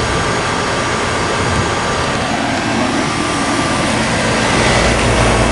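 Residential heat pump outdoor unit running in cooling mode: the condenser fan rushing air with a steady compressor hum underneath. The low hum grows louder about four and a half seconds in.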